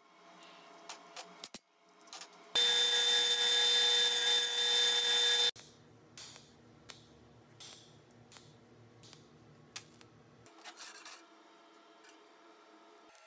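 TIG welding arc tacking thin metal strips: a steady hissing buzz with a high tone, lasting about three seconds and stopping abruptly. Light metallic taps and clinks of the strips being handled before and after.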